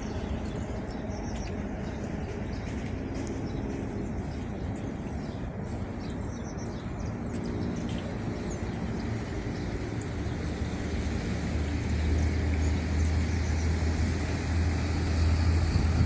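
Steady hum of distant road traffic, with a few faint bird chirps early on; a low rumble grows louder over the second half.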